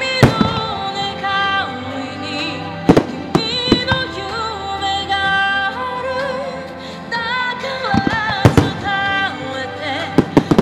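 Aerial firework shells bursting with sharp bangs, one near the start, a few about three seconds in, a pair about eight seconds in and two more near the end, over a song with a singing voice.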